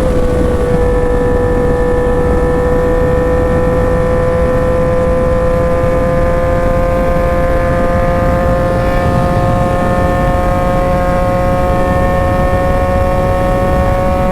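Yamaha MT-09's inline three-cylinder engine held at high revs in one gear under riding load, its pitch climbing slowly and steadily, with wind and road noise beneath.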